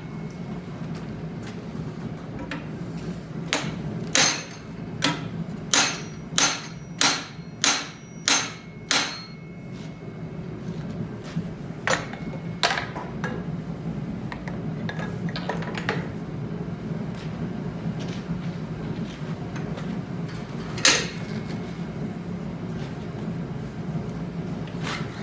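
Hand hammer striking red-hot steel held upright in a blacksmith's leg vise: a run of about nine sharp blows, roughly one and a half a second, a few seconds in, then only occasional single knocks, the loudest about 21 seconds in. A steady low hum runs underneath.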